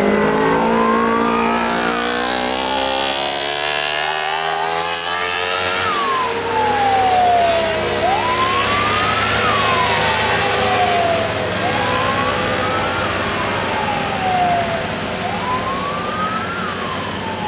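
A siren wailing in repeated slow rise-and-fall cycles, about one every three and a half seconds, over passing road traffic. In the first few seconds a vehicle engine climbs in pitch as it accelerates.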